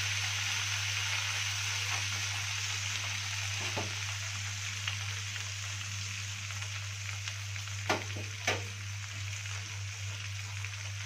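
Chopped chard greens and coriander frying in ghee and oil in a pan, a steady sizzle with stirring, as the greens are toasted to cook off their water. Two sharp knocks come about eight seconds in.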